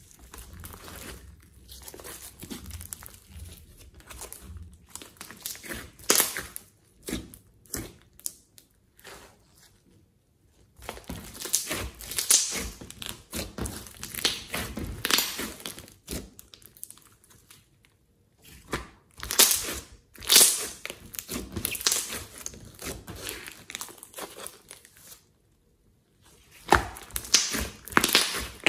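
Hands kneading, pressing and stretching glossy slime mixed with clay and glitter, making dense runs of small sticky clicks in bursts, with brief pauses between handfuls.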